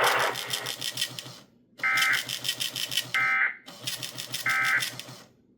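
Three short, buzzy bursts of Emergency Alert System SAME digital data tones from NOAA Weather Radio, each about half a second long and about a second apart. This is the end-of-message code that closes a required weekly test broadcast.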